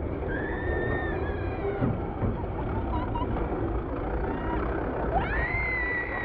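A young child shrieking in long high-pitched squeals, one shortly after the start and a longer one that rises sharply near the end and is held, over the low rumble of a roller slide's rollers as the child rides down it.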